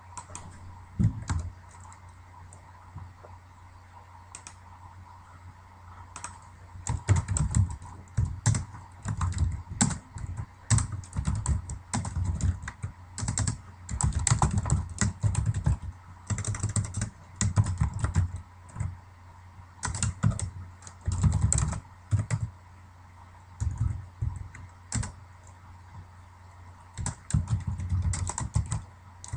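Computer keyboard typing: a few separate key clicks in the first seconds, then fast runs of keystrokes in bursts with short pauses between them. A steady faint electrical hum lies underneath.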